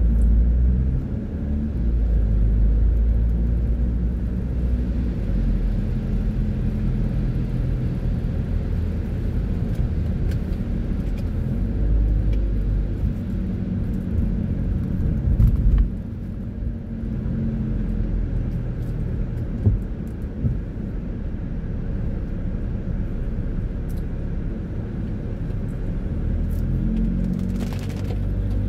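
A car being driven, with a steady low engine and road rumble whose pitch shifts a little as it goes. There are a few faint clicks and a couple of brief knocks partway through.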